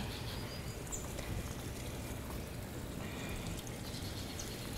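Water trickling and pouring steadily, a continuous splashing wash with no rhythm.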